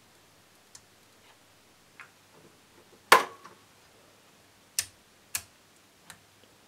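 Scattered sharp clicks and knocks from handling a homemade oscilloscope's controls and signal lead as a signal is fed to its Y-input. The loudest comes about three seconds in with a short ring after it, and two more sharp clicks come close together near five seconds.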